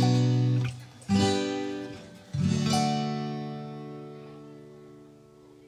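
Background music: an acoustic guitar strums three chords about a second apart, and the last chord rings on and slowly fades away.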